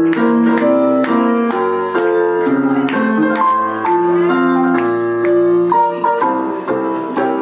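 Piano music, with sustained chords and melody notes struck in a steady rhythm of about three notes a second.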